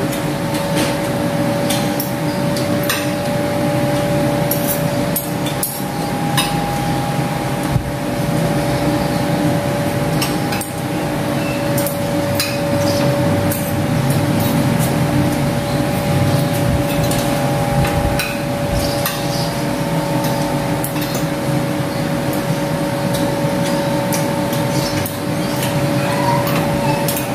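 Forks and spoons clinking and scraping against ceramic plates as two people eat, many short clinks scattered throughout, over a steady mechanical hum with a few held tones.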